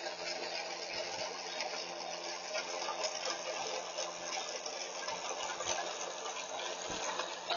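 Battery-powered string trimmer running steadily, a small electric motor hum with the whir of the line, heard through a doorbell camera's microphone over a steady hiss.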